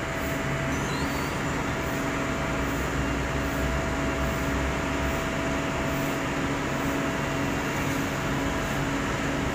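Heavy diesel engines running steadily at one even pitch, from a Sumitomo asphalt paver being loaded onto a tilting-deck self-loader truck.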